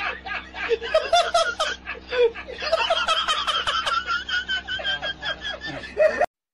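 A person laughing in quick, repeated bursts, higher pitched in the middle, cut off suddenly near the end.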